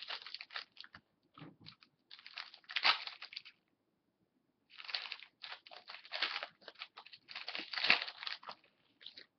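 Foil wrapper of an Upper Deck SPX hockey-card pack crinkling as it is torn open and the cards are pulled out and handled. It comes in uneven rustling bursts with short pauses, the loudest crinkles about three seconds in and again near the end.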